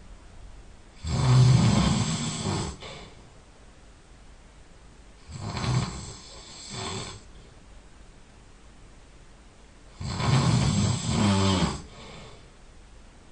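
A person snoring loudly in slow rhythm: three snores about four to five seconds apart, with quiet between them. The second snore comes in two parts, and the last ends in a fluttering rattle.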